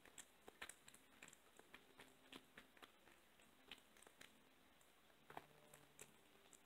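Faint, irregular wet clicks of a blue tortoiseshell kitten chewing raw chicken, several a second.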